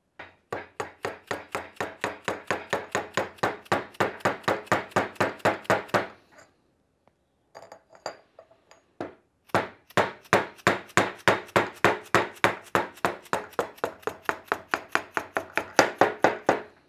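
A soft-faced mallet rapidly tapping the top of a long steel driver tube, about four to five blows a second, to drive a part down the Porsche 915 transaxle's pinion shaft; each blow rings through the tube. Two runs of tapping with a pause of about three seconds between them.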